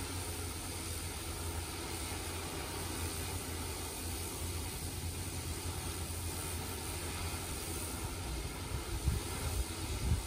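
Hexacopter drone on DJI E2000 motors and propellers hovering, a steady low hum of its rotors. A few irregular low bumps come in near the end.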